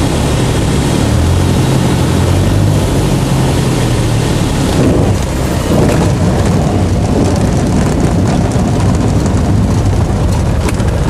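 A Citabria's engine and propeller droning loudly in the cockpit as the plane lands on a gravel river bar. About halfway, the steady engine tone gives way to a rougher rumble with rapid knocking and rattling as the plane bounces along the gravel.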